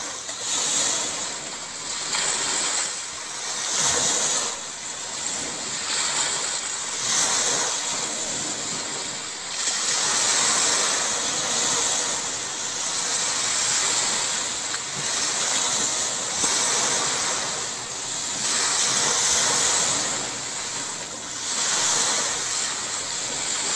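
Waves washing onto a shore, the surf swelling and falling back every two to three seconds.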